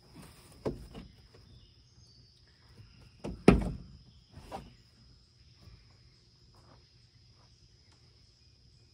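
Knocks and thumps from a Honda Civic's cardboard-backed headliner being worked forward off its retaining snaps: a few light knocks, then one loud thump about three and a half seconds in and a smaller one a second later.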